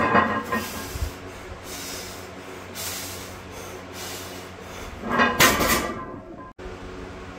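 Loaded barbell and plates during a deadlift: a short low thump about a second in, and two louder bursts of rattling noise near the start and about five seconds in, over a steady hum.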